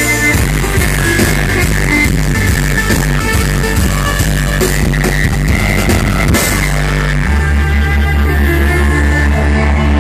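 Loud live music: amplified violin over an electronic dubstep backing track through a concert PA. About two-thirds of the way through, a heavy, evenly pulsing bass comes in.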